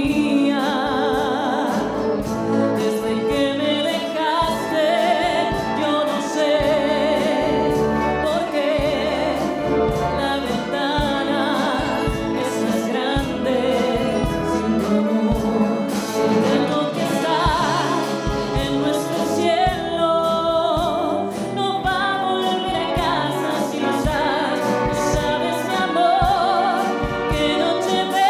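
A woman sings a slow ballad with vibrato, accompanied by a full concert wind band of clarinets, saxophones, French horns and brass, with a steady bass line underneath.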